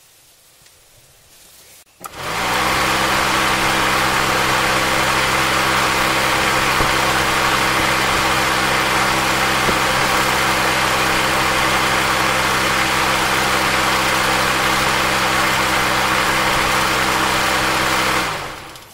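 Electric radiator cooling fan switching on about two seconds in and running at a steady speed, a motor whir with a rush of air from the blades, then cutting off and spinning down near the end. The fan motor runs on a newly fitted sealed ball bearing in place of its worn original bearing.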